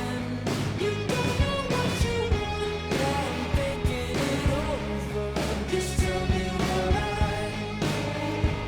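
Background pop-rock music with a steady beat, guitar and a singing voice.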